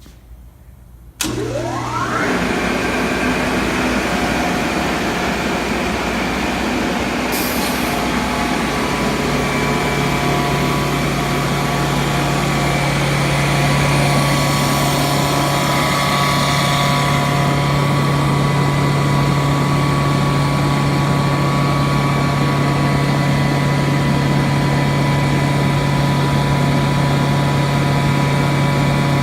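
Atlas Copco GAU 25 hp rotary screw air compressor starting up about a second in, its electric motor spinning up in a quick rising whine, then running steadily as it pumps up its tank. A deeper hum comes in about nine seconds in, with a brief hiss just before it.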